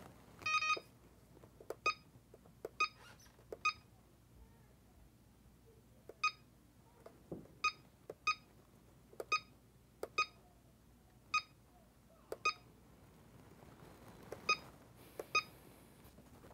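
CellPro PowerLab 8 battery charger beeping as its front-panel buttons are pressed: about a dozen short beeps, all at the same high pitch, at uneven intervals, each with a faint button click.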